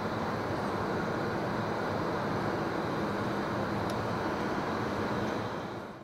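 A car driving on a paved road, heard from inside the cabin: steady tyre and engine noise that fades out near the end.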